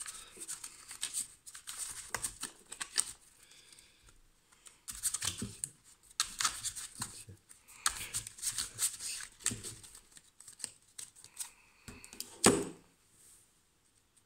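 A deck of tarot cards being shuffled by hand: quick bunches of rustling, snapping card strokes with short pauses between them. There is a single louder thump near the end.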